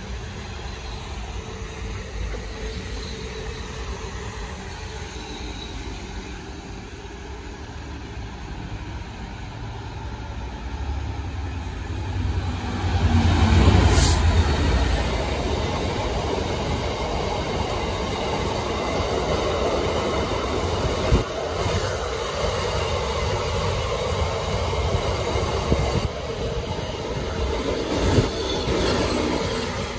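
A British Rail Class 66 diesel-electric freight locomotive passes close by, loudest about 13–14 seconds in. A long rake of open box wagons follows, rolling past with a steady rumble and clatter and a couple of sharp wheel knocks. Before the locomotive arrives, an electric multiple unit is running past with a quieter, even rumble.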